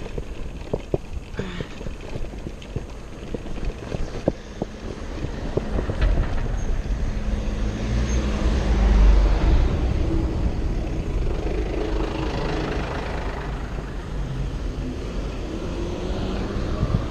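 A motor vehicle passing on the road, swelling to its loudest about nine seconds in and then fading, over a low wind rumble on the microphone.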